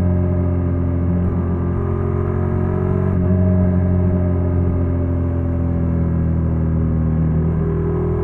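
Honda NC750X's parallel-twin engine running at a steady speed, its note drifting slowly lower with a slight rise about three seconds in.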